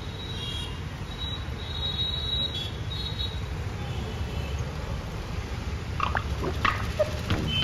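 Steady low rumble of street traffic, with motorcycles passing. A few short knocks and clicks come in the last second or two.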